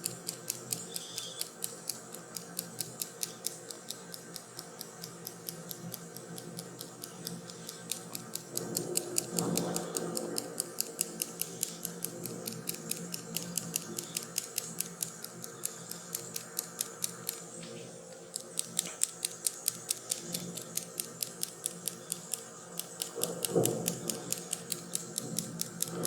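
Rapid, even clicking or tapping, roughly four to five clicks a second, over a steady hiss. Twice a brief low swell rises through it, about nine and twenty-three seconds in.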